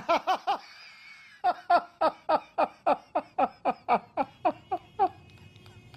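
Hearty laughter: a rapid run of "ha-ha-ha" syllables, each falling in pitch, about four or five a second. It breaks off briefly about half a second in, starts again about a second later, and stops about five seconds in.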